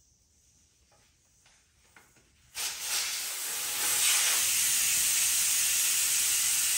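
A few faint clicks, then about two and a half seconds in, air suddenly starts hissing out of an ATV tire's valve stem with its valve core removed, a steady loud hiss as the tire deflates.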